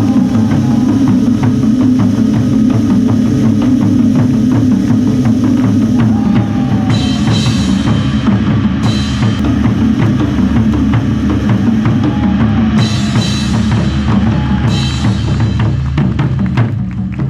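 Live ensemble drumming: many drums struck in a fast, dense rhythm, with a brighter, higher layer joining in twice partway through.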